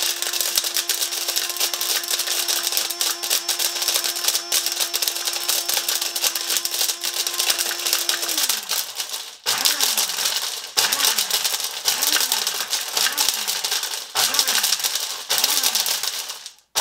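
Small Hamilton Beach blender grinding HDPE plastic bottle caps, the chips rattling hard against the jar over the steady run of the motor. About eight seconds in the motor winds down, then it is pulsed six times about a second apart, each burst spinning up and slowing again.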